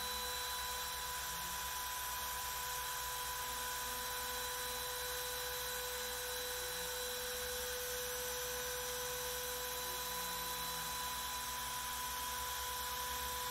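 Makita RT0701C trim router running as the spindle of a Carve King 2 CNC router while it carves MDF: a steady high-pitched motor whine over an even hiss.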